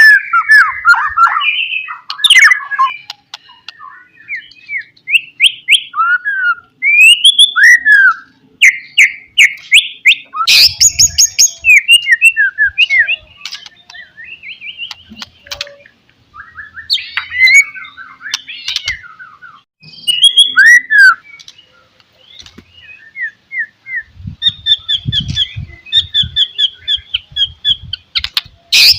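White-rumped shama (murai batu) singing an insistent, varied song of loud whistled phrases and rapid runs of notes, broken by short pauses. There are a few low thumps around a third of the way in and again near the end.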